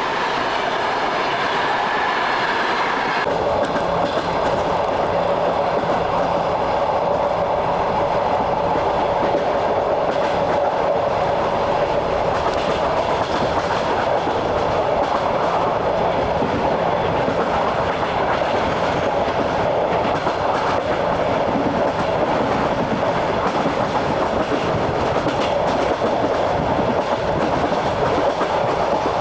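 Train in motion, its wheels clattering over the rail joints above a steady running rumble. The pitch of the running noise changes abruptly about three seconds in.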